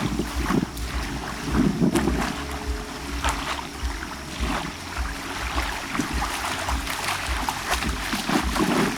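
Bay water lapping and splashing in small waves, with wind rumbling on the microphone.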